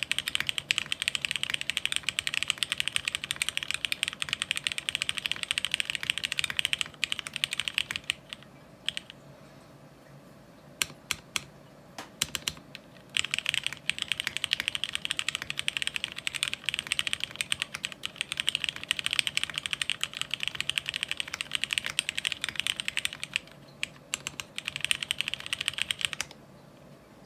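Fast typing on a mechanical keyboard with a ceramic housing: a dense run of key clacks, thinning to a few single keystrokes from about 8 to 13 seconds in, then a second fast run that stops shortly before the end.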